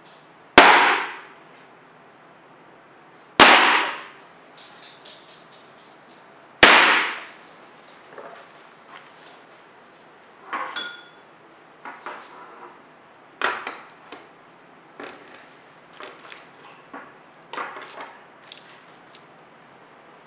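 Three hard knocks about three seconds apart, each dying away over about a second, then lighter clinks and clatter of kitchen utensils and containers, with one brief ringing clink of metal or glass near the middle.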